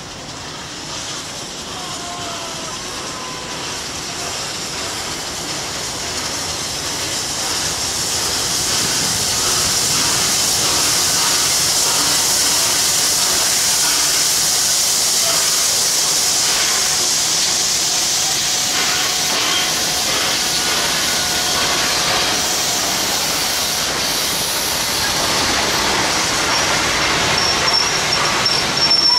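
Steam locomotive R707 passing through with a loud steam hiss that grows as it approaches, then holds steady. Its carriages follow, wheels clicking over the rail joints in quick runs.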